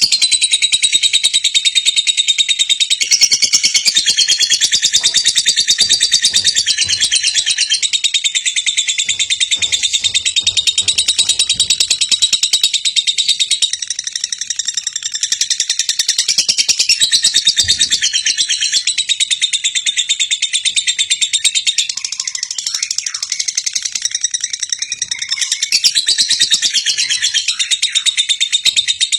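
Lovebird ngekek: a long, unbroken run of very rapid, high chattering notes, repeated without pause.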